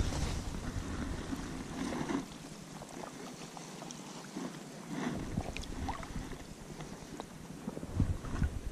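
Wind buffeting the microphone in an uneven low rumble, dropping away for a few seconds in the middle, with faint light ticks and rustles.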